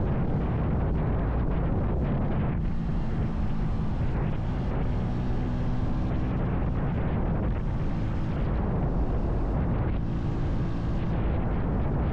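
Vitacci XMT 250 motorcycle engine running steadily at highway cruising speed, under heavy wind rush and buffeting on the microphone.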